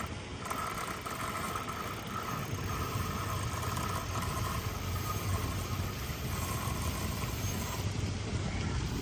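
Spinning reel's drag running in spells as a hooked sturgeon pulls line off against the bent rod, strongest in the first couple of seconds and fading near the end. A steady low rumble sits underneath.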